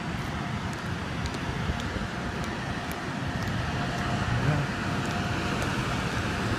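Steady outdoor road-traffic noise with a low rumble, with a few faint ticks.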